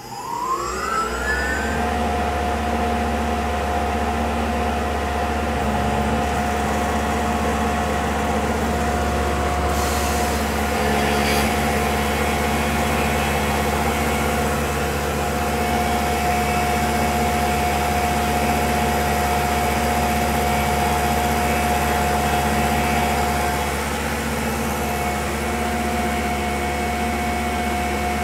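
Tormach PCNC milling machine spindle spinning up with a rising whine, then running with a steady whine while an end mill cuts a pocket into a fiberglass rifle stock.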